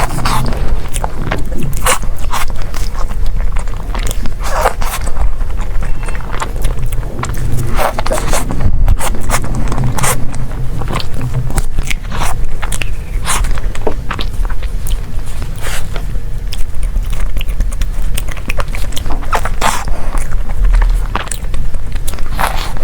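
Close-miked eating: biting and chewing desserts, with many irregular sharp clicks and crunchy mouth sounds.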